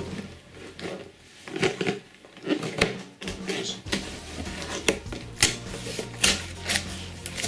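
Cardboard box being forced open at its perforated tabs: irregular scraping, crinkling and sharp tearing snaps of cardboard, with a few crisp clicks as the flap gives way.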